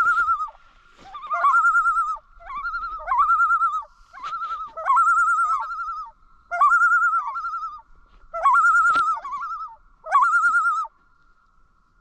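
Common loon giving its wavering tremolo call over and over, about seven calls of roughly a second each, one every second and a half or so.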